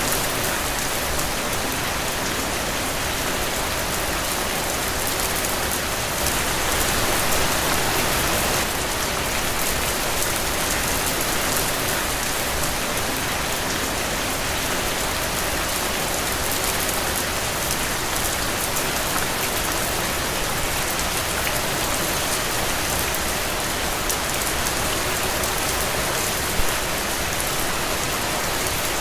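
Heavy, steady rain falling on open ground and puddles, a dense, even hiss that swells a little louder for a couple of seconds about six seconds in. A single sharp tap stands out briefly near the end.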